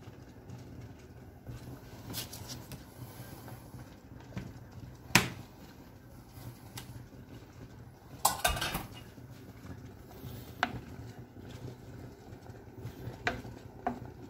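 Kitchen clatter: a few sharp knocks of utensils against pots and pans, the loudest about five seconds in and a quick cluster around eight seconds, over a low steady hum. Near the end a wooden spoon begins stirring the sauce in the frying pan.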